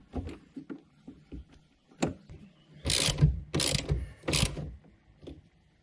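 A ratchet tightening the cable clamp onto a car battery terminal. There are a few light clicks and knocks as the clamp is seated, then three short bursts of ratcheting between about three and four and a half seconds in.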